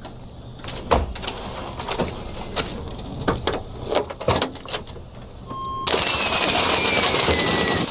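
Fireworks set off indoors: a string of sharp firecracker pops and bangs, then from about six seconds in a loud steady hiss with a slowly falling whistle, which cuts off suddenly near the end.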